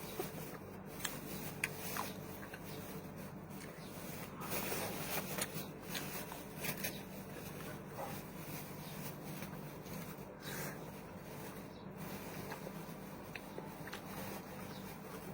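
Close-up eating and food-handling noises: scattered small clicks, rustles and scrapes, busier about four to six seconds in, over a faint steady hum.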